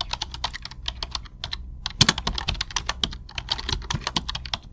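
Rapid, irregular clicking and tapping, several clicks a second, like keys being typed, over a steady low hum.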